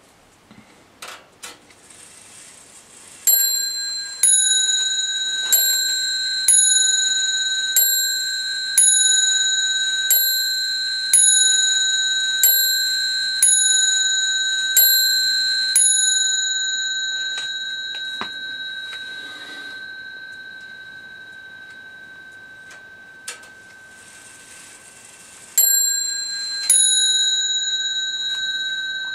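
French 1890 antique brass mantel clock striking: about a dozen evenly spaced ringing strikes, a little over one a second, each left to ring on, then two more strikes near the end. A few light clicks of the movement come before the first strike.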